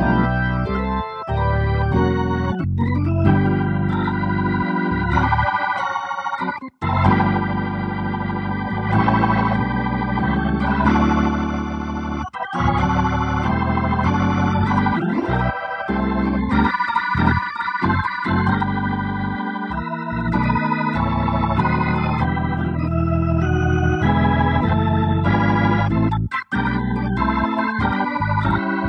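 Organ music playing sustained chords that change every second or two, with a brief break about seven seconds in and another near the end.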